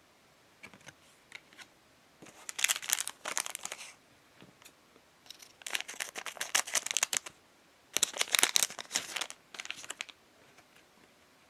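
Pokémon card booster pack wrapper crinkling and tearing in three bursts of a second or two each, with a few light ticks between them.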